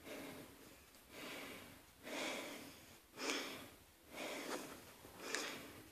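A person breathing softly close to the microphone, about one breath sound a second.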